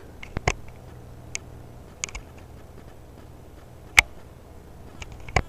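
Faint steady low hum of a running water-cooled PC (pump and fans), broken by several irregular sharp clicks, the loudest about four seconds in.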